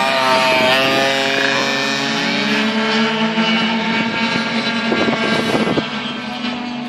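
Several racing scooters' small two-stroke engines running at high revs around the track, their whining notes rising and falling in pitch as they change speed through the corners. The sound grows rougher about five seconds in, then eases off toward the end as the pack moves away.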